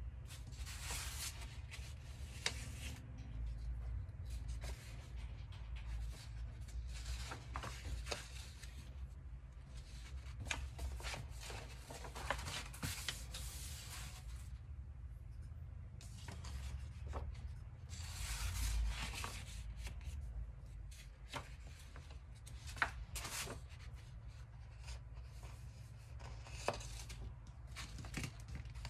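Large sheets of paper poster pages rustling and crinkling as they are unfolded and turned by hand, in repeated bursts with a few sharp crackles, over a low steady hum.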